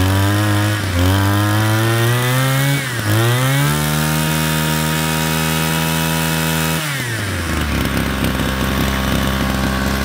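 Mitsubishi TU26 two-stroke brush cutter engine revved up twice, then held at full throttle for about three seconds before dropping back to a steady idle.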